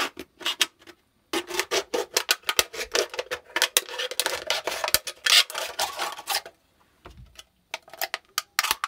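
Kitchen scissors cutting around the side of an empty aluminium Guinness can: a dense run of quick snips and scraping as the blades work through the thin metal wall for about five seconds. Near the end come a few lighter clicks as the cut can is handled.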